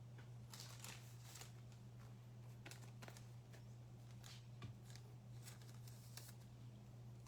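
Faint rustling and clicking of trading cards being handled and slid against one another, with a steady low hum underneath.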